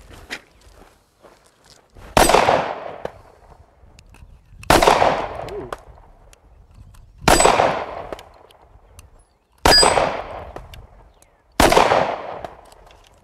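Five single shots from a Kahr CW9 9mm pistol, fired slowly about two to two and a half seconds apart, each a sharp crack with a trailing echo. Some hits draw a short high ring from the steel plate targets.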